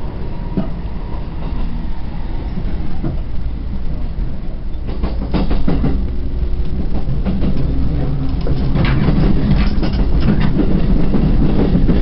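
Commuter train running, heard from inside the carriage: a steady low rumble with wheels clattering on the track, the clatter growing louder about halfway through.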